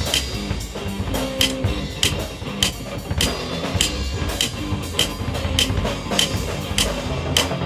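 Background music with a steady drum beat, a hit about every 0.6 seconds over a bass line.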